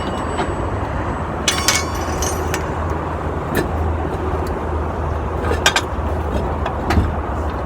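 Steady low hum of a running vehicle engine, with scattered short metallic clicks and clinks: a cluster about a second and a half in, then a few single ones.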